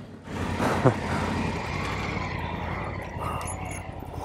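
Motorcycle engine running at low speed. A short rev about half a second in falls quickly away.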